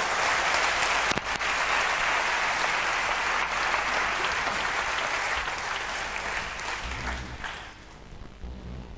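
Large auditorium audience applauding steadily, the clapping dying away near the end.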